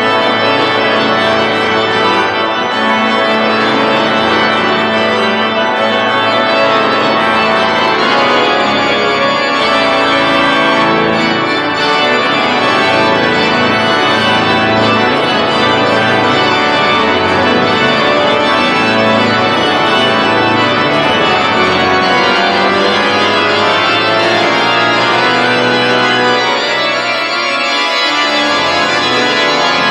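The National Cathedral's pipe organ playing a piece loudly, with dense sustained chords over a held bass line.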